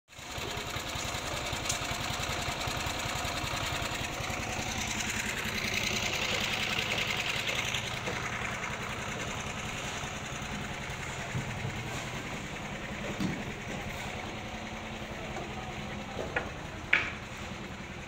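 Small engine of a portable drum concrete mixer running steadily with a fast, even chug. Near the end come a couple of short, sharp knocks.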